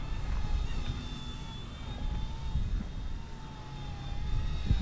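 Small toy RC helicopter's rotor motors whining, the pitch wavering up and down as the throttle changes. Wind buffets the microphone with a low rumble.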